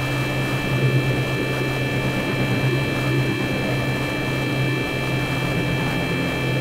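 Sustained ambient drone from an electric guitar through effects pedals: a strong low hum with several steady high tones held above it and a grainy texture between, unchanging throughout.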